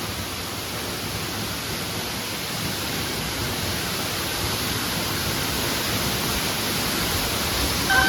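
Steady rushing roar of a waterfall, heard close up from behind the falling water, growing slightly louder.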